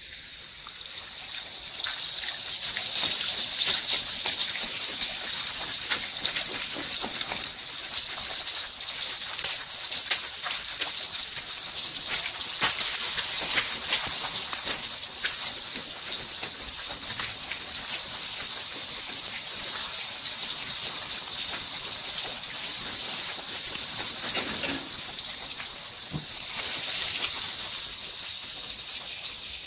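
Egg frying in hot oil in a wok: a steady sizzle with many quick crackling pops, swelling about two seconds in as the egg hits the oil.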